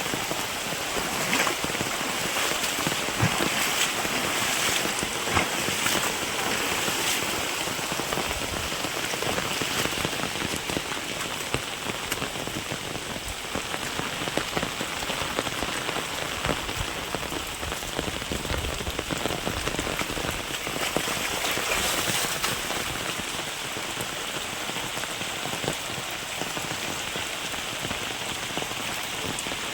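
Steady rain falling, with many separate drops ticking on surfaces.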